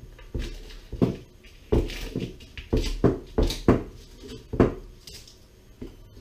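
Kitchen knife cutting through dried chillies on a wooden chopping board: about ten sharp, irregular knocks of the blade on the wood.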